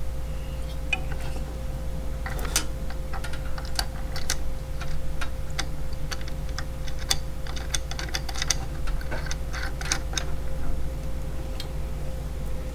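Irregular small clicks and taps of a metal mounting bracket and its bolts being handled and fitted onto an LED light's housing, over a steady faint hum.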